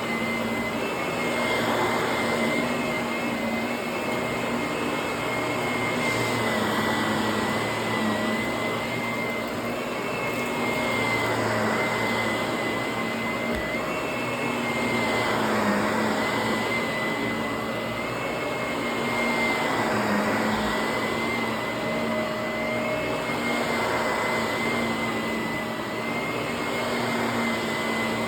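Vacuum cleaner running steadily with a high motor whine, its level rising and falling every few seconds.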